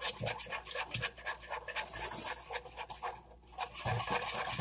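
A utensil stirring a sauce mixture in a bowl, with quick clicks and scraping against the bowl. The scraping is hissier about two seconds in and again near the end.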